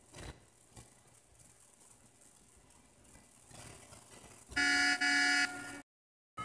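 Two loud, steady horn-like blasts of several tones sounding together, the second straight after the first, about four and a half seconds in, then the sound cuts off abruptly into dead silence.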